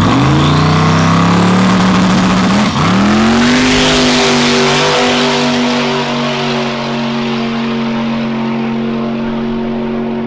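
1000 hp Corvette drag car launching at full throttle: engine pitch climbs, breaks and drops with an early shift into second gear about two and a half seconds in, then climbs again and holds high while slowly fading as the car runs away down the strip.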